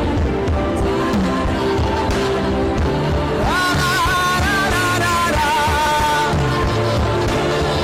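Slow worship music: sustained held chords over a bass line, with a high wavering melody line entering about three and a half seconds in and fading out a little after six seconds.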